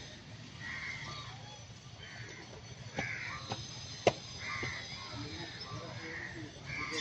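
A crow cawing over and over, a harsh call about once a second. A few sharp clicks or taps come in the middle, the loudest about four seconds in.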